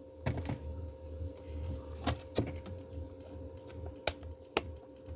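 Handling noise from fetching and setting down a dessert container: scattered sharp clicks and knocks, about five spread through, over a low steady hum.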